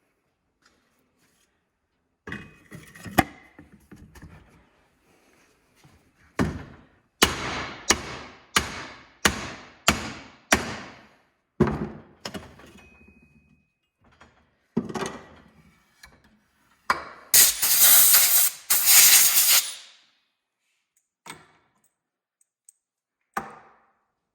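A length of ABS plumbing pipe driven down inside a Harley-Davidson fork leg, knocking a dozen or so times with short ringing tails to seat the fork washer and seal. About three-quarters through come two longer, louder rushing noises, then two light knocks near the end.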